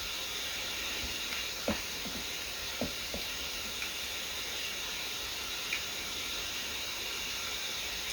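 Steady hiss of a quiet dark room, with a few faint clicks or taps: one just under two seconds in, two close together about three seconds in, and one more near six seconds.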